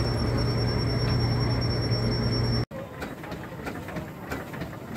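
Threshing machine running at speed, driven by a steam traction engine: a steady loud hum with a thin high whine over it. About two and a half seconds in it cuts off abruptly to a much quieter background of faint voices and light clicking.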